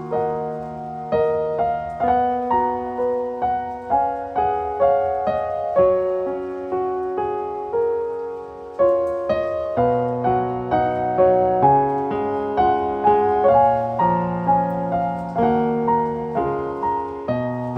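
Gentle solo piano music, a slow melody of single struck notes over sustained low bass notes.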